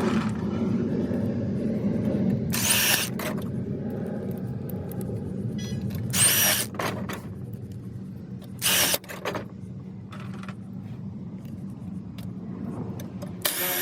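Milwaukee Fuel cordless impact drill driving sheet-metal screws through band strap into spiral duct, in four short bursts, over a steady low rumble.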